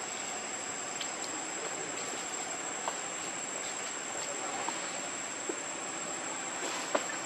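Steady insect chorus: a constant high whine over a dense hiss. A few short sharp ticks stand out over it.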